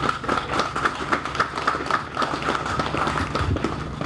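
Scattered clapping from a small audience, irregular claps a few times a second.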